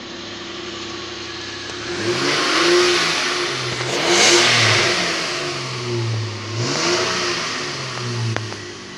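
A 2006 Kia Grand Carnival's 3.8-litre V6 runs at a steady idle, then is revved several times from about two seconds in, each blip rising and falling in pitch, during an engine test.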